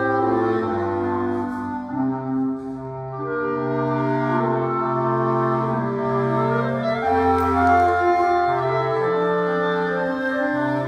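A small clarinet ensemble, with a bass clarinet on the low line, playing a piece in several-part harmony with held notes.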